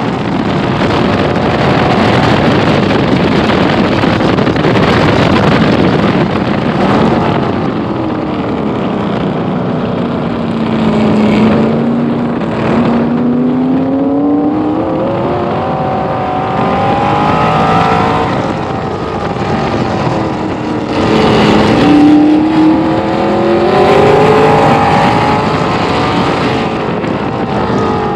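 A 1966 Corvette race car's V8 engine at racing speed, heard from the cockpit. The revs drop twice, about eight and twenty seconds in, and each time climb again as the car accelerates through the gears.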